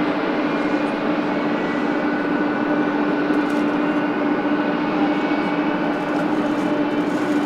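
FedEx Boeing 777F running on the ground: a steady jet drone with a strong low hum and a fainter high whine.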